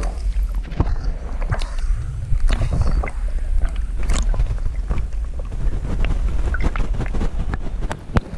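Water noise heard through an underwater camera housing: a heavy, muffled low rumble of moving water with many scattered clicks and knocks, getting quieter near the end.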